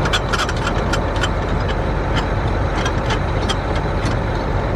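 Tractor engine running steadily, with frequent short metallic clicks and rattles over the rumble.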